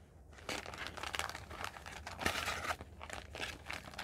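Ration packets and their wrappers crinkling and rustling as they are handled, in irregular rustles with a short tap a little past two seconds in.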